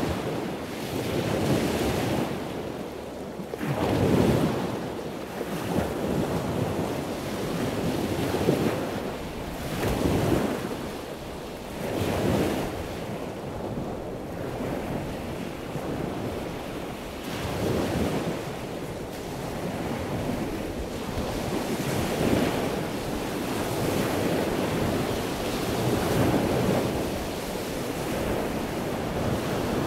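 Sea water rushing and splashing around a sailboat under way, with wind buffeting the microphone, rising and falling in uneven surges every few seconds.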